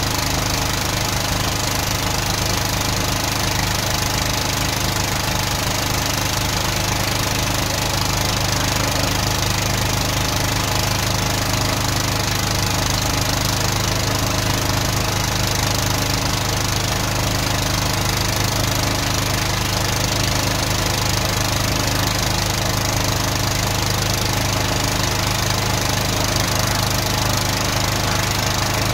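Van-mounted drain jetter's engine running steadily, driving the high-pressure pump while the jetting hose is fed into a blocked drain.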